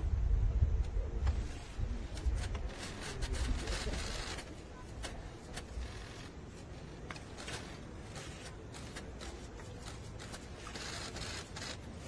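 Quiet ambience of a document signing at a table, with scattered sharp clicks and light scraping of paper and pens. A low rumble fades out over the first few seconds.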